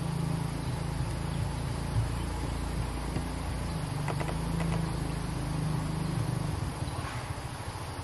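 A low, steady engine-like drone, with a few faint short chirps around the middle.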